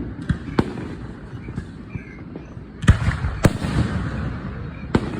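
Fireworks going off: a string of sharp bangs over a continuous low rumble, loudest twice in quick succession about three seconds in.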